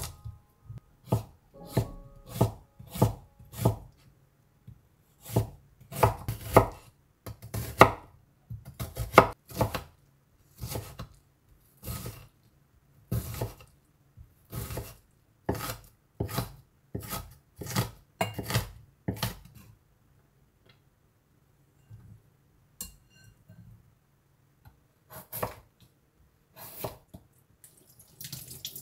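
Chef's knife chopping an onion on a wooden cutting board: separate sharp knocks of the blade on the board, about one or two a second, thinning out after about twenty seconds. Water from a kitchen tap starts running at the very end.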